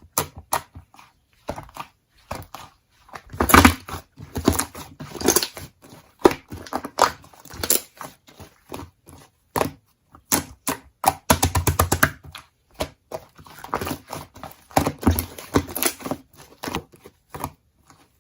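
Slime being squished and pressed by hand, making irregular sticky clicks and crackling pops, with a fast run of pops about two-thirds of the way through.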